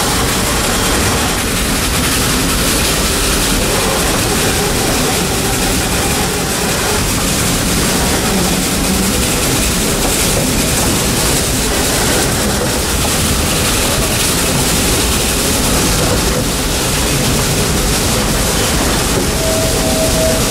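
Ride noise from an open passenger car of a narrow-gauge steam train under way: a steady, loud rumble and rattle of the train running on the rails. A single steady tone comes in near the end.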